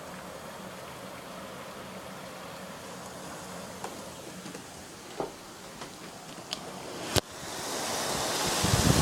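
Steady hiss of falling rain with a few small ticks. About seven seconds in there is a sharp click, after which the rain sounds much louder and closer, with low rumbling near the end.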